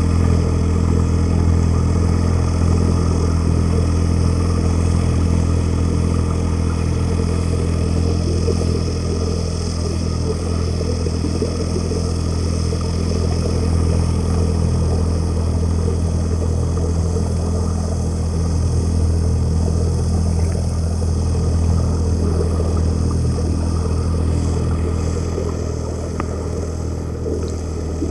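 Boat's engine droning steadily, heard underwater, a deep even hum with water rushing past the microphone.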